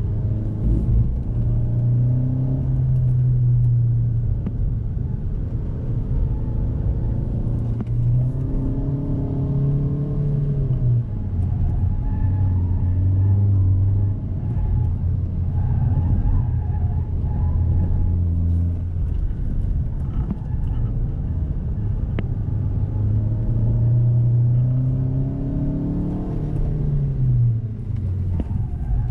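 Hyundai i20's four-cylinder engine heard from inside the cabin as the car is driven around a track, its revs climbing and dropping back several times, over a steady low rumble of tyres and road.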